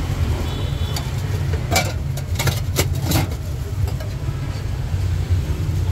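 Steady low engine rumble of street traffic, with a few sharp clinks of a metal spoon against stainless-steel containers about two to three seconds in.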